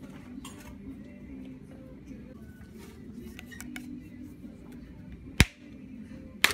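A wide bubble tea straw stabbed through the sealed plastic film lid of a cup: a sharp pop about five seconds in, then a second sharp click about a second later, over faint background music.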